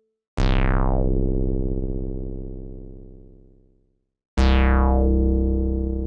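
Korg EX-800 synthesizer playing two deep bass notes about four seconds apart. Each note starts bright, with a quick downward filter sweep, then fades slowly.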